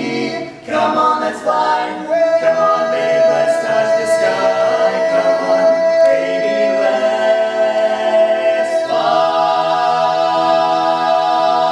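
Barbershop quartet singing a cappella in close four-part harmony. About two seconds in, the top voice settles onto one long held note, and the chord beneath it shifts near the end, closing the song on a sustained final chord.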